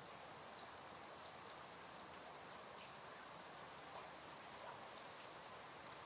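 Soft, steady rain with scattered single drops ticking close by.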